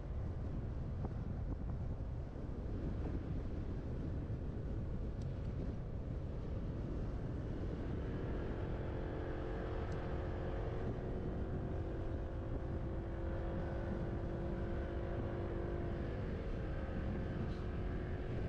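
Wind buffeting the microphone of a moving scooter, with a steady motor whine from the scooter coming in about halfway through and fading near the end.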